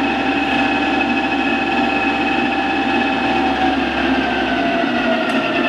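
1964 Monarch 10EE toolroom lathe running in back gear with a steady machine whine made of several high tones over a low hum. In the last couple of seconds the tones glide down in pitch as the speed is brought down.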